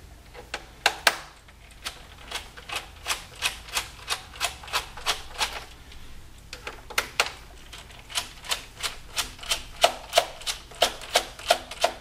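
Quick runs of light clicks, about three or four a second, as a Phillips screwdriver turns screws out of a laptop's plastic bottom case, with a short pause in the middle.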